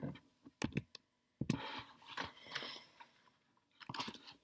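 A scattering of sharp computer clicks, as lecture slides are clicked through on the computer, with faint handling noise between them and a small cluster of clicks near the end.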